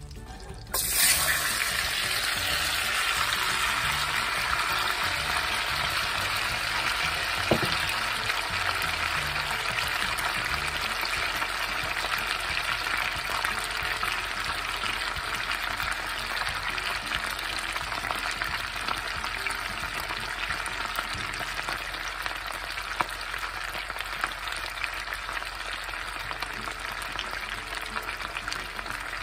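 Sliced raw potatoes going into hot butter and oil in a cast iron skillet. Sizzling starts suddenly about a second in, then carries on steadily, fading a little toward the end.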